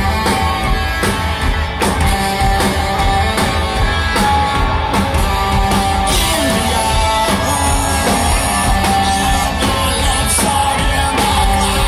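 Live rock band playing loudly through a concert PA, heard from the audience: drums, electric guitars and a lead vocal.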